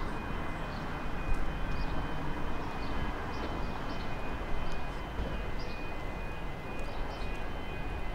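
X'Trapolis electric multiple unit approaching along the track, a steady low running rumble.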